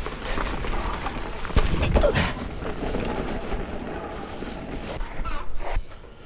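Mountain bike riding down a rocky dirt trail: tyres running over stones and loose ground, with sharp knocks and rattles from the bike, the loudest a couple of seconds in. The noise drops near the end as the bike comes to a stop.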